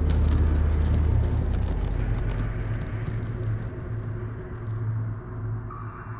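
A low, rumbling drone from the film's score that slowly fades out, with fine crackling over it during the first two seconds.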